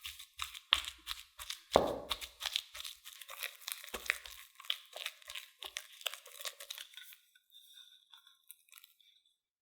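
Food preparation by hand: a rapid run of crunching, crackling sounds with one heavier knock about two seconds in, thinning out after about seven seconds.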